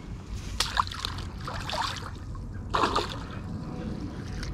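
Landing net splashing and sloshing in pond water as it is dipped and rinsed at the bank, with water trickling off the mesh: three splashes, the last nearly three seconds in.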